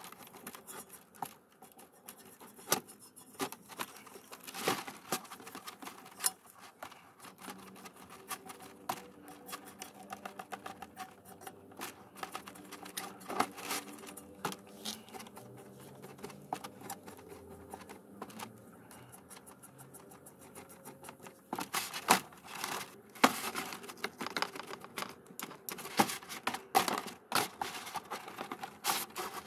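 A small brush scrubbing and tapping inside a tarnished metal dish in cleaning solution: an irregular run of scratching strokes and sharp clicks against the metal, busier and louder in the last several seconds. It is the sound of tarnish being scrubbed off during descaling.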